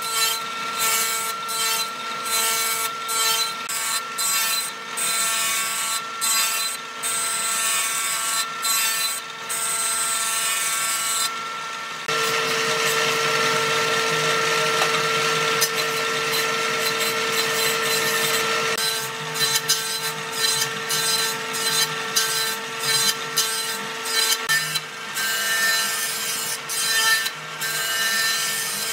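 Jointer-planer with an electric motor, its cutterhead planing a flat along a round log: rapid, irregular chattering knife bites over the machine's steady whine. For several seconds in the middle the bites give way to a smoother, steady sound.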